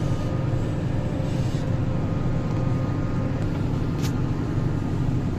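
Claas tractor engine and PTO-driven Özen İş forage chopper running together under load through damp hay, a steady low drone heard from inside the tractor cab. A faint steady whine sits over it, and there is a brief tick about four seconds in.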